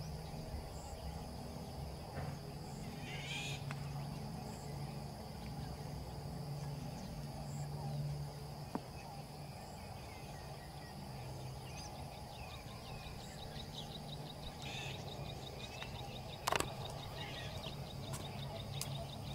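Insects buzzing steadily, joined about two thirds of the way in by a fast pulsing insect trill, with birds calling a few times over a low steady hum. A single sharp crack stands out near the end.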